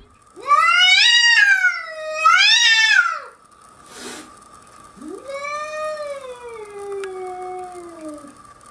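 A cat yowling: a long drawn-out call that rises and falls twice, a short click about four seconds in, then a second long yowl that slides slowly down in pitch.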